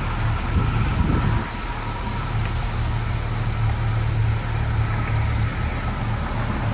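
Steady low mechanical drone inside a touchless automatic car wash bay: a constant low hum under an even hiss.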